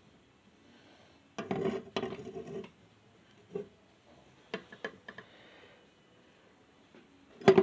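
Heavy steel pipe wrench pliers being handled: a cluster of metal clicks and rattles about a second and a half in, then a few single sharp clicks.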